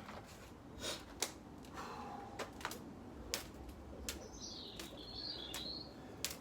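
Scattered sharp clicks and taps at an uneven pace, with a short bird call warbling for about a second and a half near the end.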